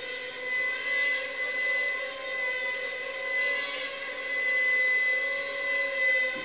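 Small quadcopter drone's electric motors and propellers buzzing in flight: a steady pitched hum that wavers slightly in pitch as the drone moves, with a steady high whine above it.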